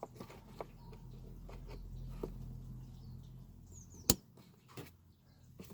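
Light clicks and knocks of parts being handled during work on a car's washer pump, with one sharp click about four seconds in. A low steady hum sits underneath for the first few seconds.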